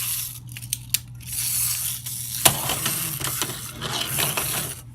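Clockwork mechanism of a wind-up toy Stegosaurus clicking in bursts as it is wound and worked, with a sharp click about two and a half seconds in.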